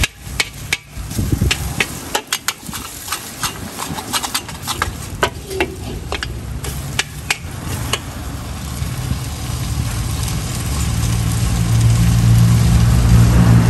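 A metal spatula clanking and scraping in a wok while noodles and eggs are stir-fried, with many quick, uneven strikes through the first half, then steadier scraping. A low, steady engine-like hum grows louder over the last few seconds.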